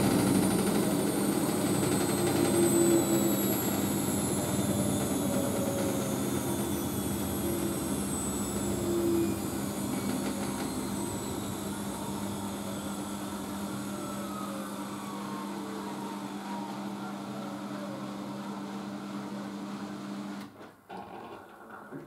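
Siemens Siwamat IQ 716 washing machine coasting down from its final spin: the motor and drum whine slides steadily lower in pitch and quieter, then cuts off about twenty seconds in as the drum comes to rest.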